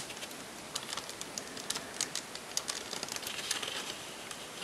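Irregular light clicks and taps of plastic Lego bricks and hinge joints as the small figure is handled and its arms are moved into place.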